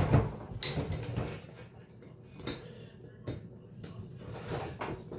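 Metal hand tools clinking and clattering against metal, a few separate sharp clinks, the loudest about half a second in, as vise grips are set and worked on a rear shock absorber's mount.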